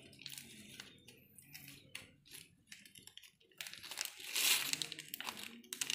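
Plastic packaging crinkling and rustling as hands work a sunglasses box, its clear plastic bag and bubble wrap: a run of short, irregular rustles, busiest about four seconds in.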